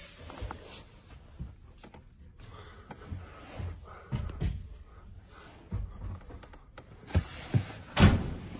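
Scattered knocks and thumps from a person moving about in the rear seat of a pickup truck's cab, with phone handling noise. The loudest thump comes about eight seconds in.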